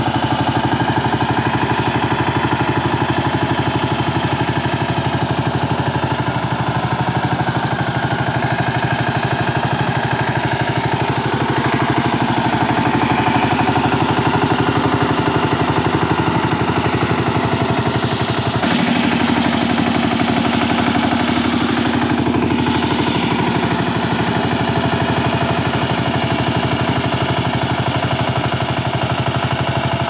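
Kamco Super DI 12 hp power tiller's single-cylinder diesel engine running steadily under load as its rotary tiller digs dry soil, with a rapid, even chug and a short change in tone about two-thirds of the way in.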